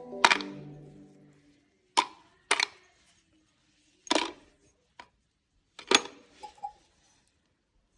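Small metal motorcycle parts clinking and knocking against each other and a container as they are handled for washing: about eight sharp separate knocks, spaced irregularly.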